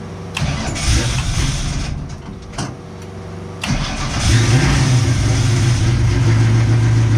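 1967 Mustang race car's engine cranked on the starter for about three seconds, catching and firing up a little over halfway through, then running at a steady idle: a first start after sitting for months.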